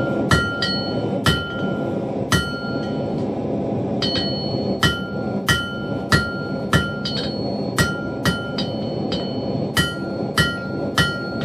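Blacksmith's hammer striking steel on an anvil, about fifteen blows at one to two a second with a pause partway through. Each blow leaves a short clear ring from the anvil, which is not yet properly remounted. A steady rushing noise runs underneath.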